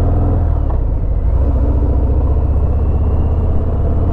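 Harley-Davidson Fat Bob's Milwaukee-Eight 107 V-twin engine running at steady cruising speed under the rider, a loud, even low-pitched pulsing.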